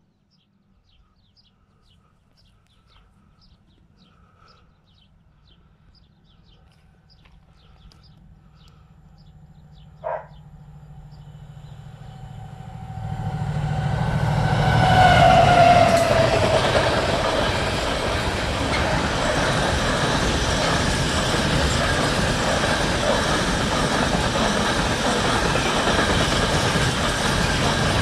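Colas Rail Class 70 diesel-electric locomotive (GE PowerHaul V16 engine) approaching and passing with an engineering train: a low engine rumble builds from far off, a short horn note sounds about ten seconds in, and the locomotive goes by loudest with a tone that falls in pitch. After it, the long rake of open wagons runs past with a steady clatter of wheels over the rails.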